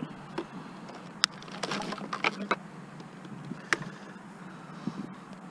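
Scattered sharp clicks and knocks from cords and small e-waste appliances being handled and cut off as scrap, a cluster of them in the middle, over a steady low hum.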